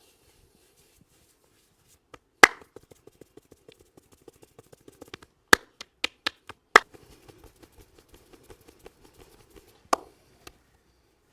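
Hands striking the head in a percussive Indian head massage: a fast run of light chopping taps, about five a second. Loud sharp slaps or claps land about two and a half seconds in, four more between about five and a half and seven seconds, and one near ten seconds.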